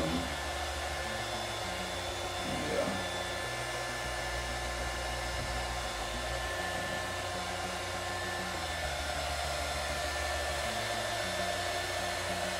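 Small handheld heat gun blowing hot air steadily, run to speed up the drying of glue on a glittered wine glass.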